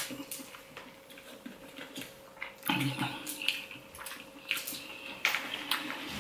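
Wet chewing and mouth sounds from a mouthful of seafood eaten close to the microphone, with scattered sharp lip smacks and clicks.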